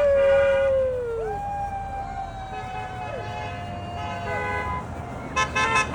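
Long wailing tones that rise, hold steady and slide down at the end, then car horns honking in quick short beeps near the end.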